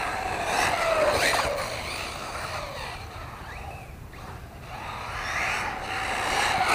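Trugified Arrma Typhon RC car's 2150kv brushless motor and drivetrain whining as it speeds up and slows, the pitch gliding up and down, louder near the start and again near the end. Tyre noise from the rubber on concrete runs underneath.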